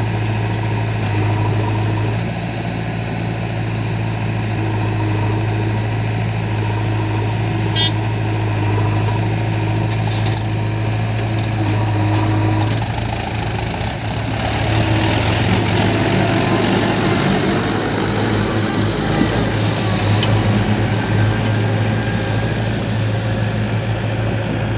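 Diesel engine of heavy earth-moving machinery running steadily. About halfway through the sound turns rougher and a little louder, with some rattling.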